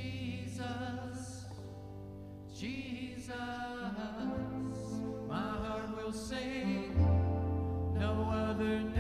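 Live contemporary worship band playing a slow song: a voice sings a wavering melody over keyboard and low held bass notes that change every few seconds.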